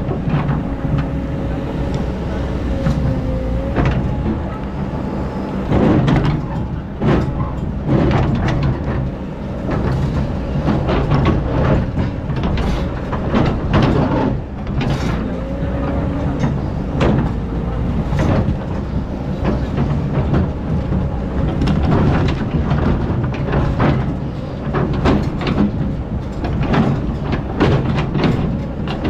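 Excavator's diesel engine running steadily under load while it digs sand, with repeated clanks and knocks of the bucket and arm. A higher whine rises out of it twice, near the start and again about halfway.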